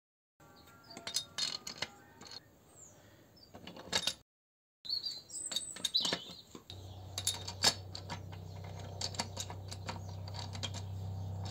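Light metallic clinks and taps of engine main bearing caps and their bolts being handled and hand-threaded over the crankshaft. From a little past halfway, a steady low hum runs underneath.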